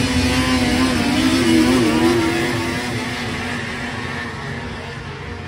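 Racing snowmobiles at full throttle off the start of a hill drag. The engine note holds high and wavers, then fades over the last few seconds as the sleds pull away up the hill.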